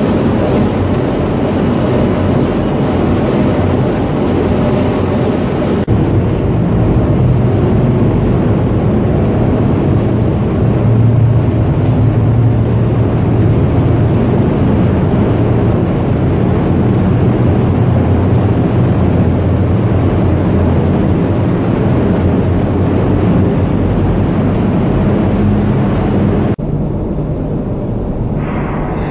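Loud, steady machinery noise of a large container ship's engine spaces at full sea speed: first the lower engine-room platform with its electric motors, then, after a sudden change about six seconds in, the shaft tunnel around the turning propeller shaft, a deep continuous hum. Near the end it cuts to a quieter, duller drone in the under-deck passage.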